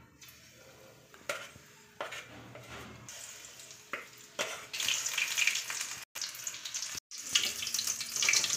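Paneer pakoras in besan batter deep-frying in hot oil in a kadhai: a few sharp clicks in the first half, then a loud, dense sizzle that builds from about halfway and cuts out for an instant twice.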